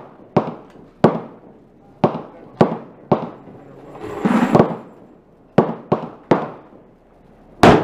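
Gunshots from a Glock 30 pistol converted to 10mm Auto with a Storm Lake barrel: a string of about ten sharp reports fired one at a time, half a second to a second apart, with a brief gap past midway.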